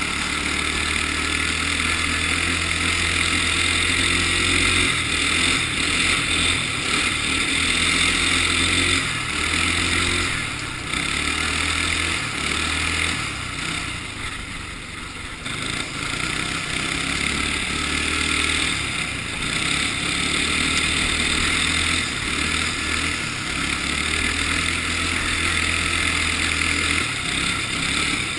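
Go-kart engine running hard close up from the moving kart, its note rising and falling with the throttle; it eases off for several seconds midway through, then picks up again.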